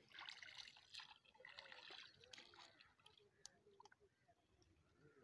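Faint splashing and sloshing of feet wading through shallow water, stepping out onto the bank over the first couple of seconds, followed by a few small clicks.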